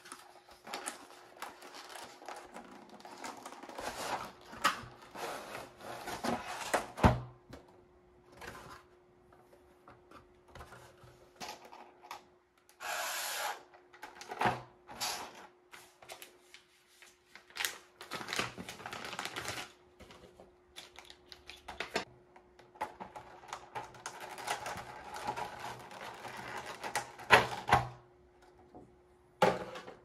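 Keycap packaging being handled on a table: a cardboard box and clear plastic keycap trays sliding, tapping and clicking, with scattered rustles and a brief hiss about halfway. Two sharper knocks stand out, one early and one near the end, over a faint steady hum.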